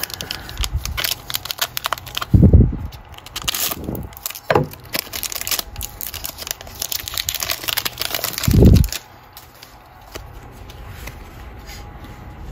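Panini Mosaic trading-card pack wrapper crinkling and being torn open by hand, with two dull thumps, the loudest sounds, a couple of seconds in and again near nine seconds in.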